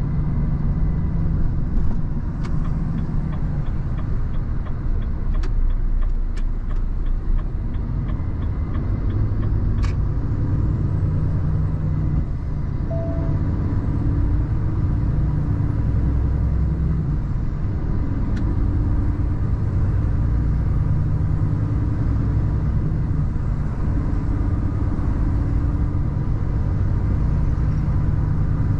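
Renault T480 truck's diesel engine and tyre rumble heard inside the cab while driving and pulling up to highway speed, the engine note shifting as it goes through the gears. About two seconds in, a run of quick light ticks lasts for about five seconds.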